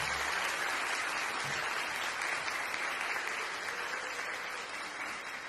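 Audience applauding, a steady clapping that slowly dies down toward the end.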